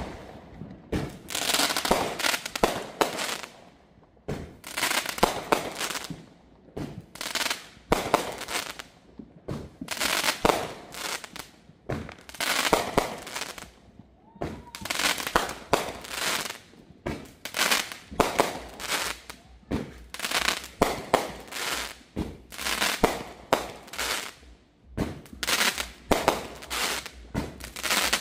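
Consumer fireworks going off in quick, irregular succession. Sharp bangs and pops, several a second and often overlapping, are broken by a couple of short lulls.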